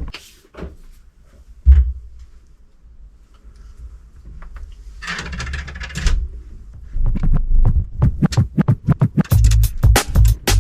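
A few clicks and a sharp knock of metal parts being handled on a bench, then a short scraping hiss. Electronic music with a drum beat fades in about seven seconds in and is loud near the end.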